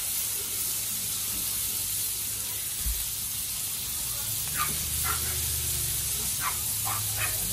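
Hot Blackstone flat-top griddle hissing steadily, with butter sizzling on it, before the burger patties go on.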